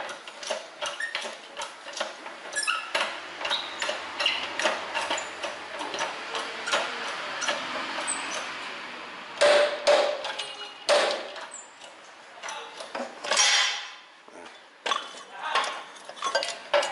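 Repeated metallic clicks, clinks and knocks of a wrench and steel parts being handled on a steering knuckle in a workshop press, while the wheel hub is being pressed out to get at the wheel bearing. There are several louder clanks in the second half.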